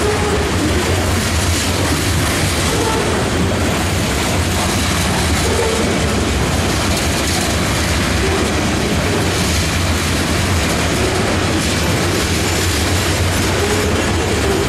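Freight train of covered hopper grain cars rolling past close by: the steady rolling rumble of steel wheels on the rails.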